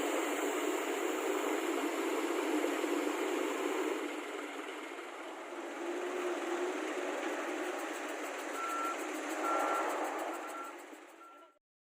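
Heavy construction machinery running with a steady noisy drone, joined in the last few seconds by a backup alarm beeping about once a second, four beeps, before the sound cuts off suddenly.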